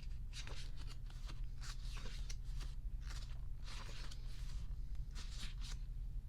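Pages of a photobook being turned and handled: repeated short papery rustles, two or three a second, over a steady low hum.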